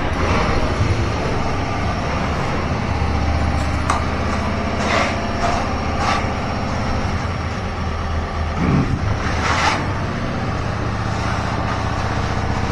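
A large engine idling steadily, with two short hissing noises about five and ten seconds in.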